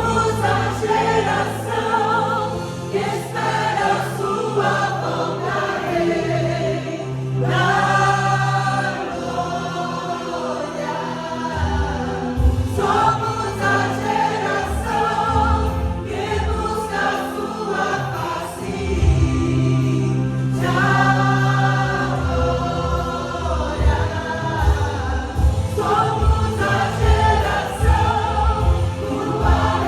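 Brazilian gospel worship song in Portuguese, sung by several voices together like a choir over a band with bass and drums.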